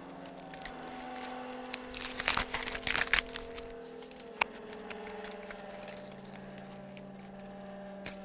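Horror sound effect: a low, steady droning backdrop of held tones, with a burst of loud cracking and crunching about two to three seconds in and a single sharp crack a little later.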